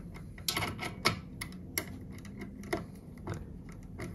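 Scattered small clicks and ticks of a screwdriver turning the screws of a switching power supply's terminal block, with crimped wire terminals knocking against it.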